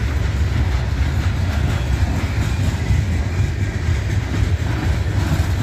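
Freight train's cars, bulkhead flatcars loaded with lumber, rolling past close by: a steady, loud rumble of steel wheels on the rails.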